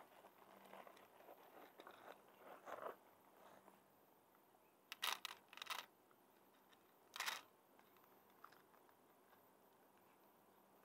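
Cat crunching dry kibble from a plastic tray: soft, irregular chewing crunches for the first few seconds, then a few sharper, louder crunches about five seconds and seven seconds in.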